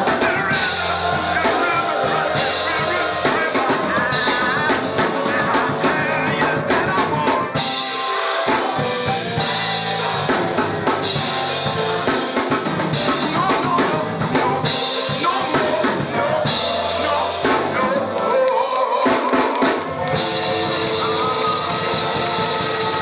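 Live gospel music: a man leads the song on a microphone with a choir, backed by keyboard and a drum kit. The congregation claps along.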